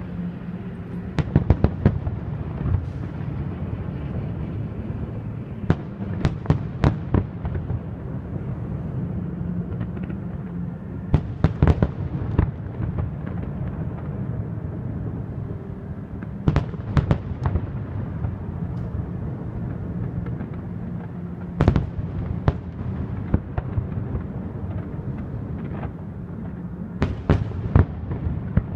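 Fireworks display: clusters of sharp shell bursts, several bangs in quick succession each time, recurring about every five seconds over a steady low rumble.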